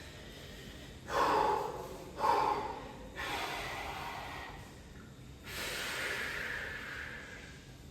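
A man breathing hard after a weight-training workout: two quick, sharp breaths about a second apart, then two longer breaths out.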